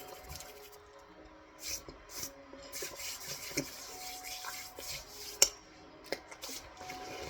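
Raw cornstarch being chewed and crunched in the mouth: irregular crackly, squeaky bites, with one sharp click about five and a half seconds in.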